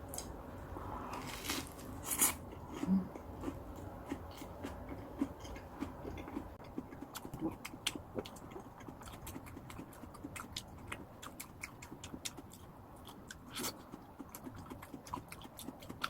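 Close-miked chewing and biting of a vegetable-filled sandwich: a steady run of small wet clicks and crunches, with a few louder bites about two seconds in and again near the end.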